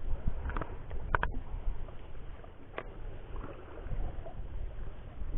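Wind and water noise around a small fishing boat at sea, as an uneven low rumble, broken by a couple of sharp clicks about a second in and another near three seconds.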